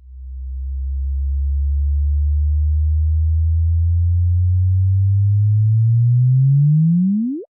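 Sonified space recording: a loud, low electronic tone that slowly creeps up in pitch, then sweeps sharply upward in the last second and cuts off abruptly.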